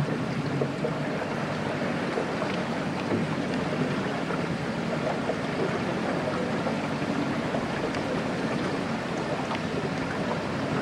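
Small boat's motor running steadily under an even rushing noise of water and wind.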